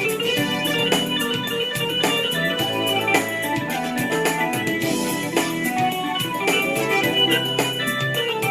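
Instrumental band music: organ-like keyboard chords over a bass line, with drums keeping a steady beat.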